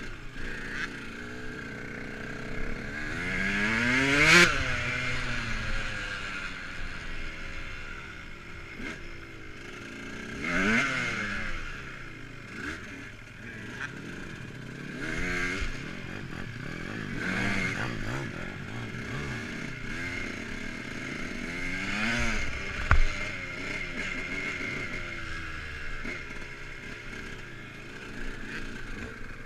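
Dirt bike engine being ridden, its pitch rising sharply in five or so bursts of throttle with steadier running between. A sharp knock sounds a little past two-thirds of the way through.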